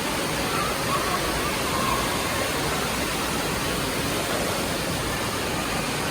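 Steady rush of water from an indoor waterpark's water features, with faint voices mixed in.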